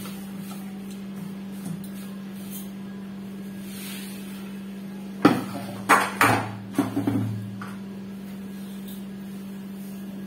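Kitchen utensils knocking and clinking against a mixing bowl, a quick cluster of sharp strokes about five to seven seconds in, over a steady low hum.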